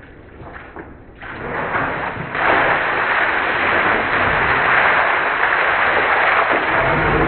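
Buckets of ice water poured over two people's heads, splashing down over them: a loud, continuous rush of water that starts about a second in and grows louder about two and a half seconds in.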